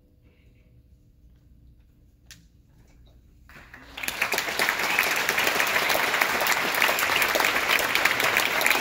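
Near silence for about three seconds, then audience applause breaks out and builds within a second to loud, steady clapping.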